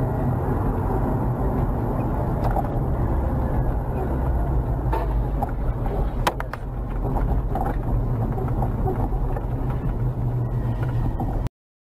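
Steady road and engine noise heard inside a moving car, as picked up by a dash cam, with a quick cluster of sharp clicks about six seconds in.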